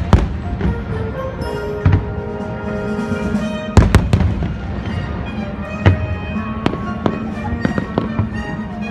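Fireworks shells bursting in sharp bangs every second or two, the loudest about four seconds in, over steady music.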